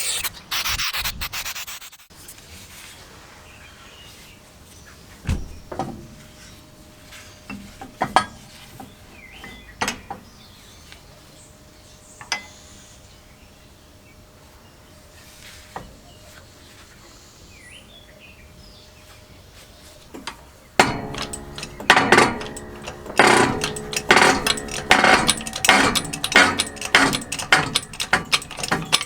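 Hand work on an old air compressor: a few scattered knocks of metal parts, then, about two-thirds of the way through, a ratchet wrench clicking rapidly and continuously.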